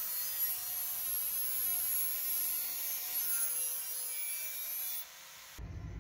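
Angle grinder with a sanding disc grinding the steel edge of a shovel blade: a steady abrasive hiss over a thin, high motor whine. It stops about five seconds in.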